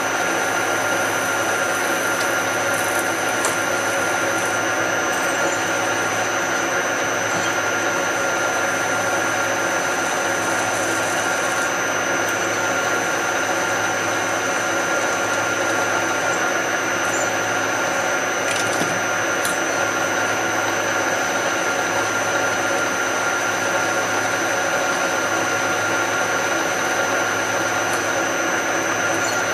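Metalworking machine running steadily while drilling holes in steel parts: an unbroken motor hum and whine at a constant pitch, with a few faint ticks about two-thirds of the way through.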